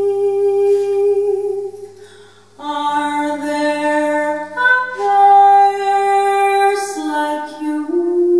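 A woman singing long, held notes, breaking off briefly about two seconds in, with a steady low hum underneath.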